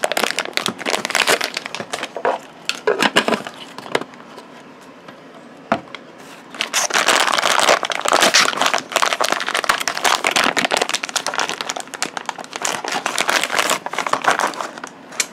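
Crinkly foil blind-bag packaging being pulled out of a plastic toy bottle and unwrapped by hand: two long spells of crinkling and rustling, with a quieter gap and a single click around the middle.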